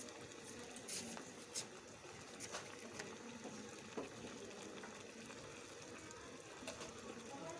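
Pan of noodles, egg and vegetables in water bubbling and sizzling faintly on the stove, with a few light clicks.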